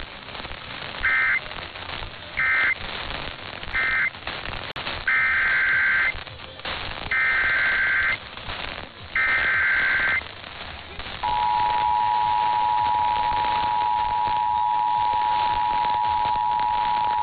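Emergency Alert System signalling: three short data bursts (the end-of-message code closing the previous warning), then three longer data bursts of about a second each (the SAME header of the next alert). About 11 seconds in, the steady two-tone EAS attention signal begins and holds.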